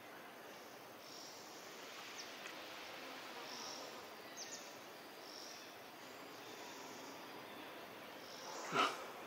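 Faint outdoor ambience with insects chirping in short high bursts every couple of seconds, and a brief double chirp about halfway through. Near the end comes a sudden louder burst, the start of a cough.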